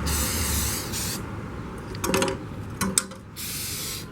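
Aerosol can of Flex Seal rubber sealant spraying in two bursts, a hiss of about a second at the start and a shorter one near the end, with a few short clicks of the can being handled in between.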